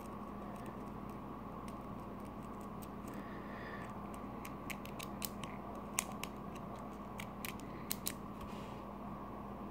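Light, scattered clicks and ticks, most of them in the middle of the stretch, from a partly disassembled Medeco cam lock being handled and repositioned, over a steady low hum.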